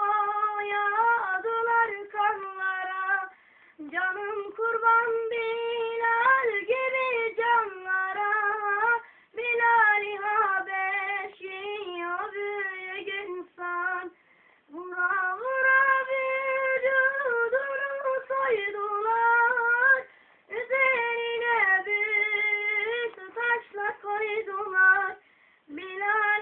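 A child singing alone with no accompaniment: a high voice in long, ornamented phrases, with short breaths between them.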